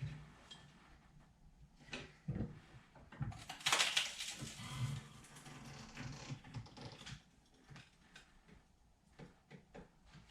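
Sheet steel being handled and worked in a metal shop: scattered knocks and clicks, with a louder scraping rush about three and a half seconds in that lasts around a second and a half.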